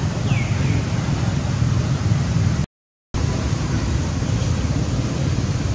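Steady low rumbling outdoor noise with a faint short falling chirp about half a second in; the sound cuts out to silence for about half a second midway, then resumes unchanged.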